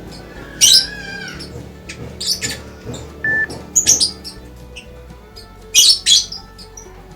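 A caged bird giving sharp, loud squawking calls, about seven of them spaced irregularly, over steady background music.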